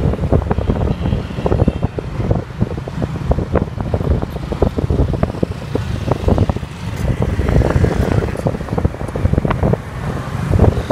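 Wind buffeting the microphone on a moving motorcycle, a heavy gusty rumble with irregular flutters, over the bike's engine and passing road traffic.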